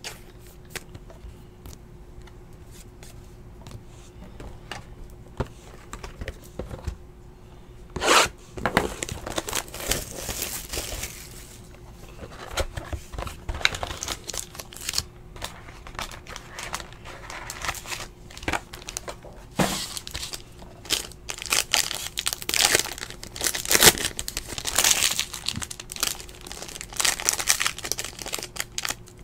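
Foil trading-card pack wrappers of 2017 Panini XR Football crinkling and tearing as they are opened by hand, mixed with plastic card sleeves rustling. The crackling comes in scattered bursts, busiest and loudest in the last third, over a faint steady hum.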